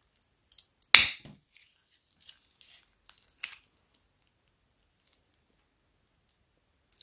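Slime being squeezed from a plastic bag onto a glass plate: one loud wet squelch about a second in, then a few faint sticky clicks and pops.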